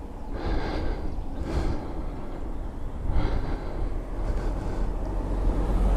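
Wind gusting on a hand-held camera's microphone, in a few soft swells, with a low rumble building near the end.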